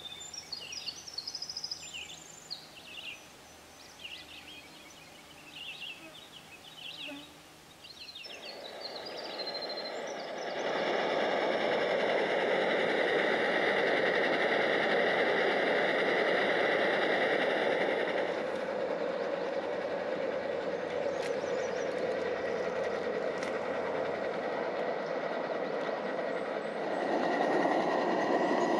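Scattered short chirping calls over quiet surroundings. About eight seconds in, a liquid-fuel camp stove's burner starts and runs with a loud, steady rushing hiss, reaching full strength a couple of seconds later and shifting slightly in tone a few times.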